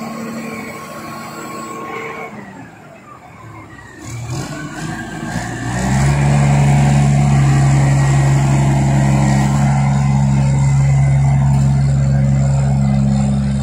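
Kalmar reach stacker's diesel engine running while its boom holds a heavy machine. It is quieter and uneven for the first few seconds, then about six seconds in it rises to a loud, steady note that holds until near the end.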